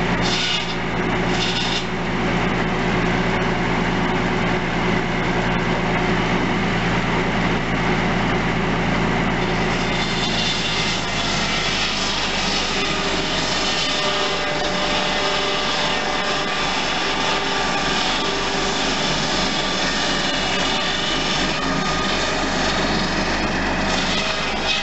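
Massey Harris 744 tractor's Perkins six-cylinder diesel running steadily, belt-driving a circular saw bench. The saw blade cuts through firewood logs in short touches near the start and then steadily from about ten seconds in, while the engine note changes under the load.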